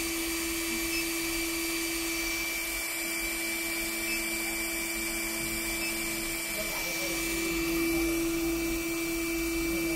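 NC-UV0406 UV flatbed printer running a lamp-only curing pass, with its UV lamp lit over a varnish-printed phone case: a steady mechanical hum with a constant low tone, a thin high tone and hiss.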